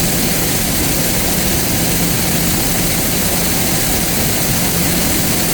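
Silo-filling machinery running steadily while corn silage is blown into the silo: a loud, even rush with a steady low hum underneath.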